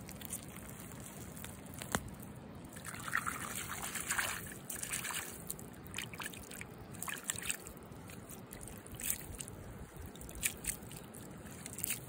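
Hands working in shallow muddy paddy water, sloshing and trickling in short irregular bursts as freshly dug wild greens are swished about, with a sharp click about two seconds in.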